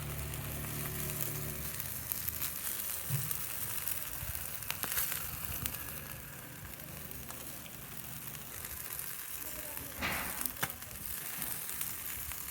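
Chicken wings and legs sizzling as they grill, a steady hiss with scattered small crackles.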